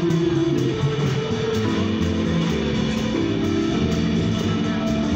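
Live jazz from a small acoustic combo: an upright bass line under sustained electric-keyboard chords, with drum-kit cymbals keeping a steady beat about twice a second.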